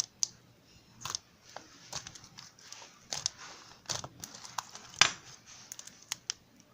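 Slime being pressed and stretched by hand: irregular sticky pops and crackles, loudest about five seconds in.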